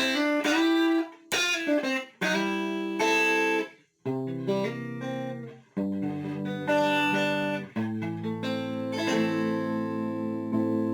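Electric guitar playing chords through a light compressor setting: about six chords, each struck and left to ring, some cut short, the last one held and sustained.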